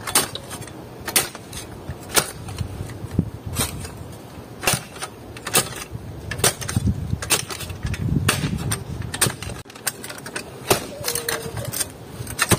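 Hand tool chopping into dry ground, digging a planting hole: sharp strikes at roughly one a second, irregularly spaced.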